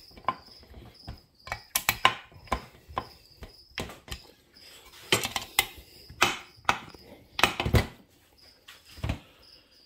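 Irregular clicks and knocks of a screwdriver and the metal chainsaw crankcase halves being handled on a workbench as the case is worked together. A faint high chirp repeats about three times a second in the background.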